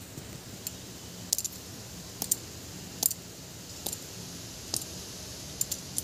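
Sharp, irregular clicks, often in pairs, about one a second, over a steady faint background hiss.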